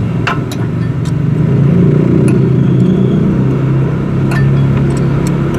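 A steady low engine drone, a motor vehicle running nearby, growing louder about a second and a half in, with a few sharp metal clicks from hand tools.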